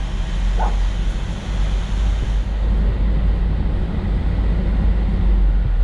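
Ford Mustang's engine running at low speed with tyre and wind noise, heard from the driver's seat: a steady low rumble.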